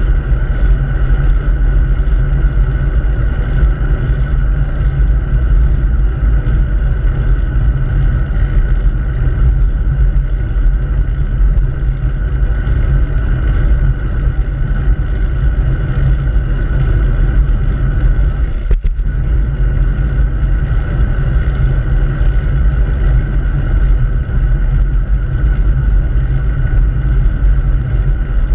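Steady wind rush and road noise on a bicycle-mounted camera's microphone while riding along a road. A single sharp knock comes once, partway through.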